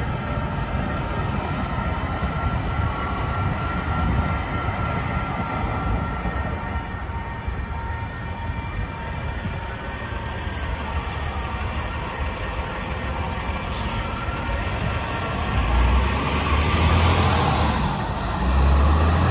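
Metro light-rail trains rolling through a street-level railroad crossing while the crossing's warning bells ring steadily. The bells stop about two-thirds of the way through, and road traffic starts across the tracks, with a truck engine loudest near the end.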